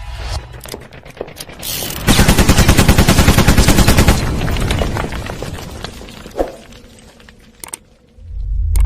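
A rapid run of loud, sharp bangs in quick succession, about eight a second for roughly two seconds, like a burst of machine-gun fire, trailing off into scattered clicks and noise.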